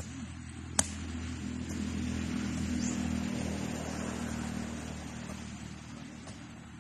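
A vehicle passing on the road, its noise swelling up to a peak about three seconds in and then fading away. A sharp click about a second in.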